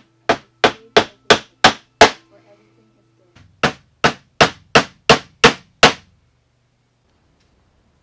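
Wooden-handled hammer driving tacks into a wooden stretcher bar to fasten the stretched canvas. The sharp strikes come about three a second in two runs, six and then seven, with a pause of about a second and a half between them.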